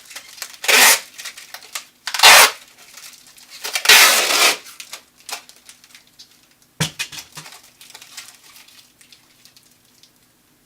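Adhesive tape pulled off a roll in three short rasping pulls about a second and a half apart, the last one longer. A few light handling clicks follow, over a faint steady hum.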